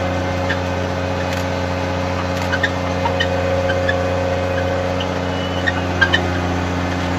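Snowcat engine running steadily under load, heard from inside the cab as an even low drone, with a few light clicks and rattles scattered through it.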